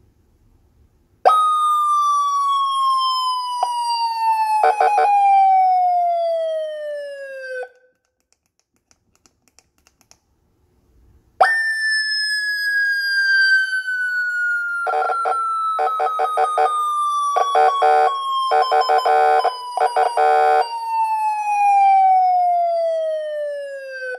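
Electronic motorcycle police-style siren (20 W) sounding twice, with a short silence between. Each time the tone starts abruptly and slides slowly down in pitch: the first over about six seconds, the second starting higher and falling over about thirteen seconds. Rapid choppy pulsing cuts in over the tone, briefly in the first and several times in the second.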